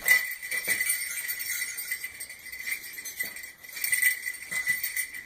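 A small bell jingling continuously, with irregular shakes and strikes.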